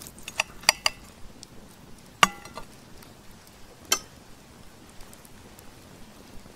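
Knife and bone clinking against a ceramic plate as a bone-in steak is cut and set down. There are three light clinks in the first second, a louder ringing clink a little after two seconds, and one more near four seconds.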